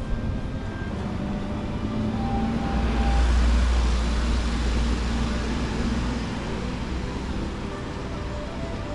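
A road vehicle passing close by on a city street: its low engine rumble and tyre noise swell about three seconds in, peak, and fade away by about six seconds, over steady street traffic noise.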